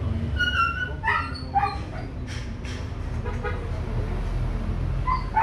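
A dog yipping and whining in short, high calls, several in the first two seconds and again near the end, over a steady low hum.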